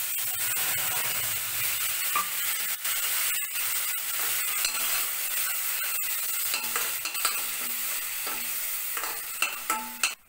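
Wet green paste of ground coriander leaves, ginger, garlic and green chilli sizzling hard in very hot oil and ghee in a stainless steel kadai. A slotted steel spatula stirs it, scraping and clicking against the pan. The sizzle cuts off shortly before the end.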